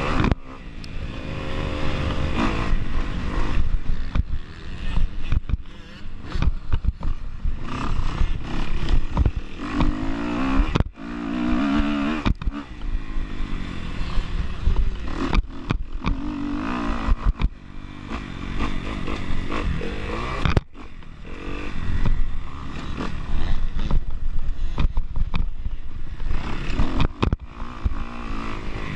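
A dirt bike's engine heard from the rider's on-board camera, revving up and down in pitch as it is throttled on and off around the track. It is mixed with clattering knocks from the bike and rider over the rough dirt, and it briefly drops out twice.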